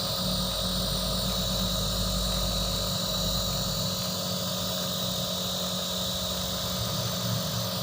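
Compressor nebulizer running, a steady hum with a hiss of mist as it nebulizes medicine for a baby's congested airways.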